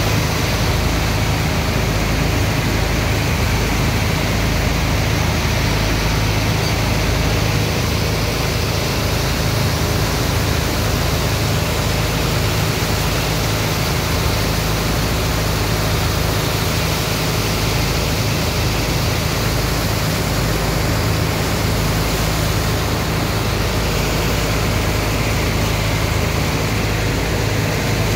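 Steady rush of water and sand slurry gushing from pipes into a barge's sand hold and splashing across the wet sand, over a steady low engine hum.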